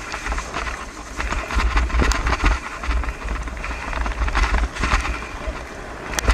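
Bike rolling fast on a muddy dirt track: wind rumbling on the microphone over the crunch of tyres on gravel and mud, with a few sharp clicks near the end.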